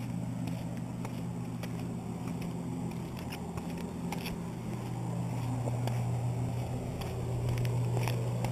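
Steady low motor hum, getting louder in the second half, with scattered light clicks and taps.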